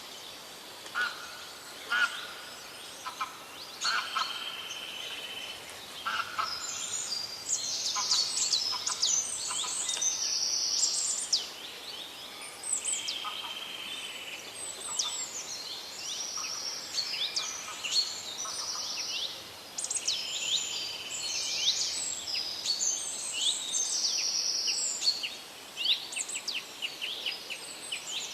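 Several birds singing at once: rapid high chirps and sharp downslurred notes mixed with buzzy trills, overlapping throughout over a faint outdoor hiss.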